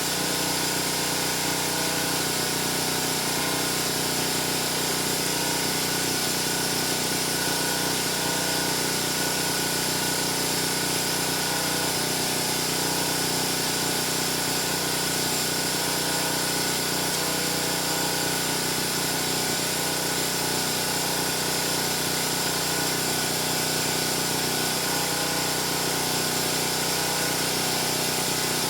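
A small motor running steadily, a constant hum with a high whine over it.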